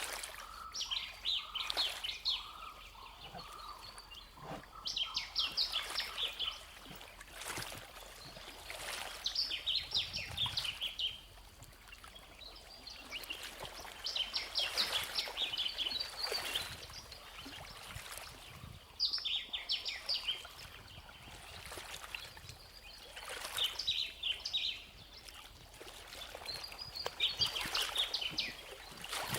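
A songbird singing short bursts of rapid high notes, about seven phrases repeated every four to five seconds, over a faint trickle of water.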